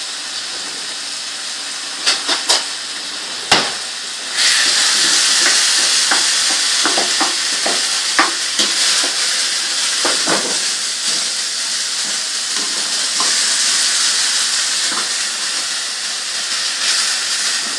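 Yogurt-marinated minced meat sizzling in oil in a nonstick frying pan as its water cooks off, with a spatula scraping and tapping the pan while it is stirred. A few sharp knocks come two to three seconds in, and the sizzle grows louder about four seconds in.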